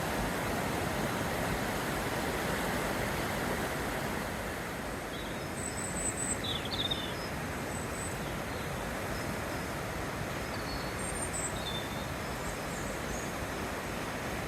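A river swollen with snowmelt rushing in spate, a steady even roar of water. A few short high chirps come through it in the middle.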